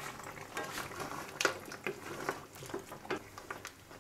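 Wooden spatula stirring chunks of mutton in gravy in a wok, with irregular clacks and scrapes against the pan.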